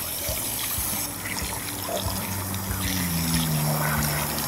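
Water spraying from a garden hose nozzle into a stainless steel bowl of whole mackerel, splashing over the fish as they are rinsed. A steady hiss of water, with a faint low hum slowly falling in pitch underneath from about a second in.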